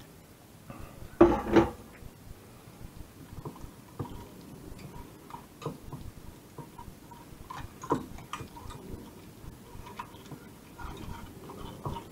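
Kitchen handling sounds: light clinks and taps of utensils against a bowl and dishes, with one louder clunk about a second in.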